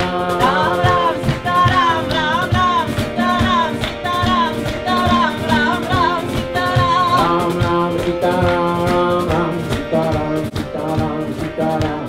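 Kirtan music: a harmonium holding long chords under acoustic guitar and a steady drum beat, with a voice singing a melody that bends up and down above it.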